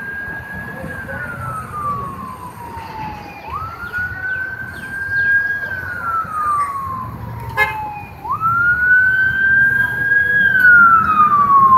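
Emergency vehicle siren wailing: each cycle rises quickly, holds high, then slides slowly down, repeating about every four to five seconds. It grows louder from about two-thirds of the way in.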